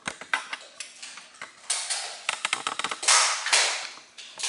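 Nerf Strongarm dart blaster being worked: sharp plastic clicks from priming the slide and turning the cylinder, and two puffs of darts being fired about a second and a half apart, the second the loudest.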